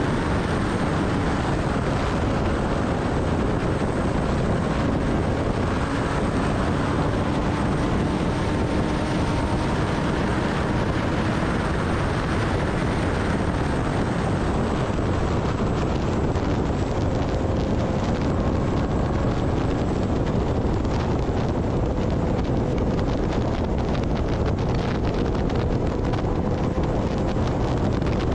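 Kawasaki Ninja ZX-10R's inline-four engine running at a steady highway cruise, its pitch nearly constant, under heavy wind rushing over the microphone. In the second half the wind turns gustier, with crackling buffets.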